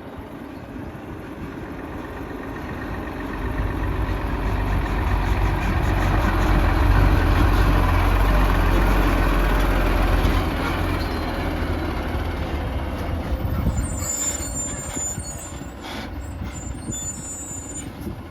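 Heavy diesel truck engine growing louder as it comes closer, loudest about seven seconds in, then fading away. Short high-pitched hisses or squeals come near the end.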